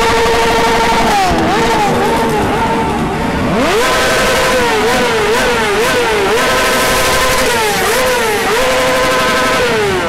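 Sport motorcycle engines revved hard and loud: held at high revs, then dropping, with a run of quick throttle blips around the middle, held high again and falling away near the end.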